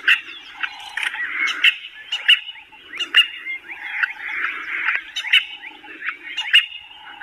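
Animal calls: a busy series of short, sharp chirping calls, one every half second or so, over a continuous lower chatter.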